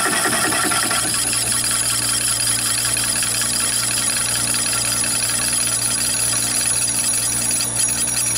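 Chinese mini lathe running an HSS slitting saw, with a steady high whine throughout. The saw is cutting a cross slot in brass bar, and the rough, rhythmic cutting chatter stops about a second in as the cut finishes, leaving the lathe spinning freely.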